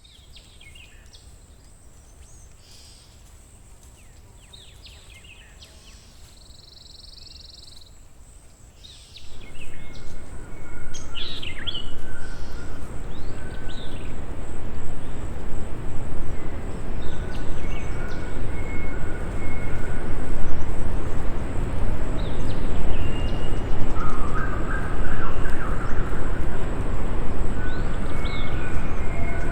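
Forest ambience of small birds chirping and calling over a steady high insect hum. About nine seconds in, the loud, even rush of a river close by comes in and continues under the bird calls.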